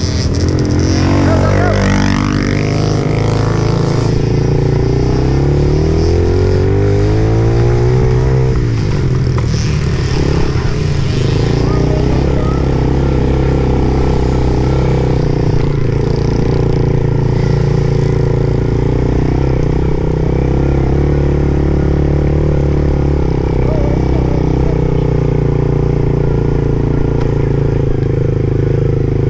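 Dirt bike engine revving up and down through the gears for the first several seconds, then running at a steadier pitch.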